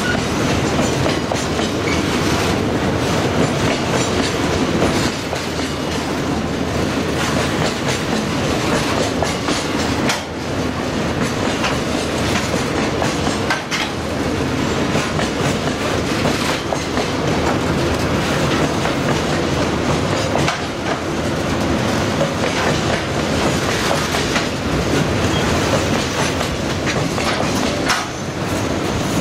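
Freight train's open-top wagons rolling past close by: steady wheel noise on the rails with a clickety-clack of wheels over the rail joints, dipping briefly every few seconds.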